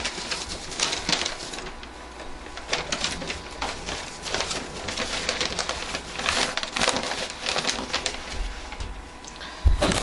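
Sheets of paper rustling and crinkling in irregular bursts as they are handled and leafed through, with a low thump near the end.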